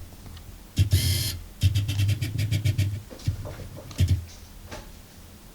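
Handling noise close to the microphone: low thumps and rubbing as the camera or the cardboard firework cake box is moved, with a short fast rattle about a second in.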